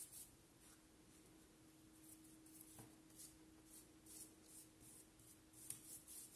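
Flat bristle brush loaded with brown paint swept across thin printer paper in repeated one-way strokes, each a faint scratchy swish, more frequent in the second half. A faint steady hum runs underneath.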